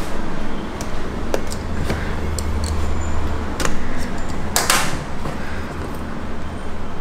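A pen tip scraping and tapping along the seal of a cardboard phone box, with one short, loud tearing swish a little past halfway as the seal is cut. A steady low hum runs underneath.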